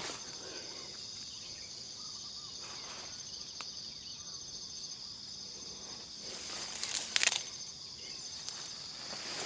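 Steady, high-pitched chorus of forest insects trilling with a fast pulse. About seven seconds in there is a brief louder rustle, like a step through undergrowth.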